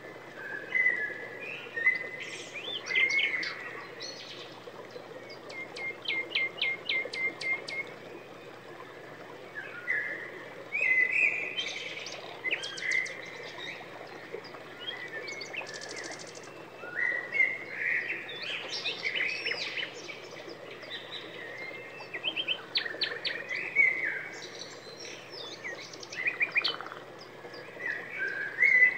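Birds singing: phrases of varied chirps, whistled glides and quick trills, a second or two long, with short pauses between them.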